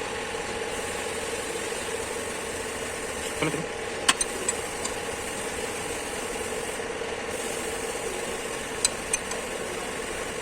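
A steady mechanical hum with a fixed pitch runs throughout. Sharp metallic clicks of tools come through it about four times, the loudest about four seconds in.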